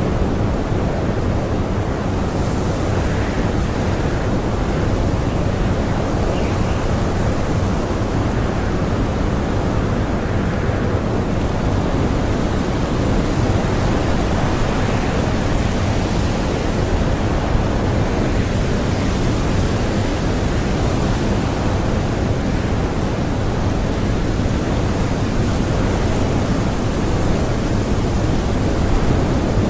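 Strong blizzard wind blowing without a break, a dense, even noise that swells and eases slowly in gusts.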